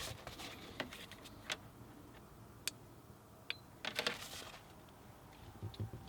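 A few scattered sharp clicks and light metallic knocks from small hardware being handled, with a short flurry of them about four seconds in.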